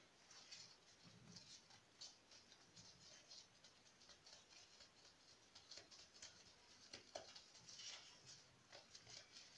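Faint crinkling and rustling of disposable plastic gloves, with soft scattered ticks, as hands roll dough into a log on a wooden board.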